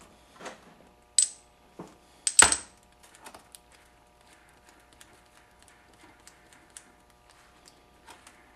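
Metal clinking from a Polaris Trail Boss transmission gear shaft, its gears and ball bearing being handled by hand: two sharp ringing clinks near the start, the second louder, then light scattered ticks.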